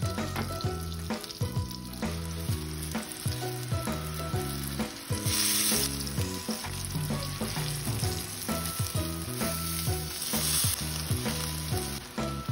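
Flour-coated eggplant slices sizzling as they fry in oil in a nonstick frying pan, with light clicks as the slices are turned. The sizzle flares up louder about five seconds in and again about ten seconds in. Background music with a steady beat runs underneath.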